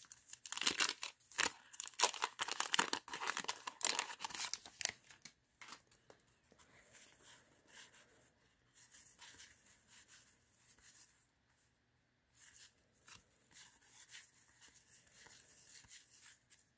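A wax-paper trading card pack is torn open, with loud crinkly tearing for the first five seconds or so. After that come quieter, scattered rustles as the cards are handled.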